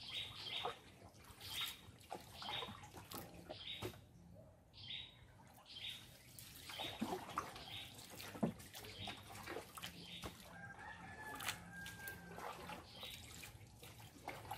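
Faint bird calls and water sounds, with short sharp sounds about once a second and one longer held call about eleven seconds in.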